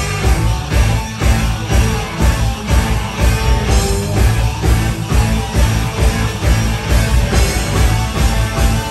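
Live rock band playing: electric guitars, bass and drums with a steady, driving beat, heard through the room.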